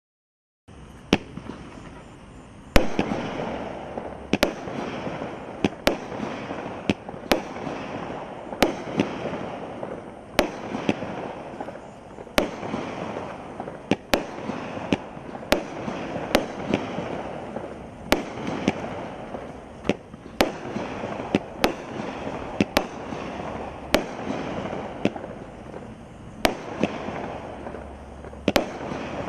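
Power Blast 'Jubilee' 200-gram consumer fireworks cake firing its 25 shots. It starts under a second in with sharp bangs about once a second, the loudest around three seconds in, and a steady rushing noise between them.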